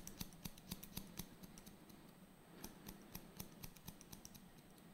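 Hairdressing scissors snipping through a held section of hair: faint, quick snips about four a second. They pause for about a second before a second run.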